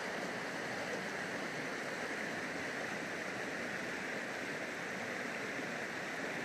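Shallow creek water rushing steadily over stones and small riffles.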